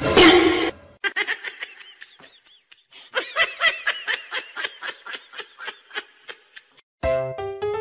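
High-pitched giggling laughter: a quick run of short bursts, about four or five a second, swelling and then fading away, after a loud short burst at the start. Keyboard music comes in near the end.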